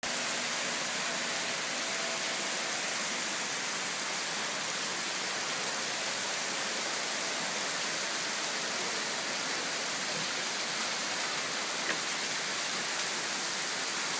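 Steady rain falling on a lake, an even hiss with no let-up.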